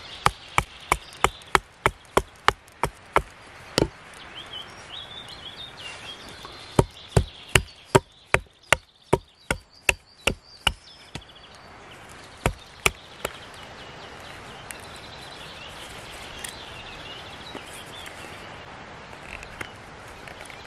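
Small hatchet chopping a wooden spoon blank against a log: quick runs of sharp chops about three a second, a short pause between them, and two last chops about two-thirds of the way through, after which the chopping stops.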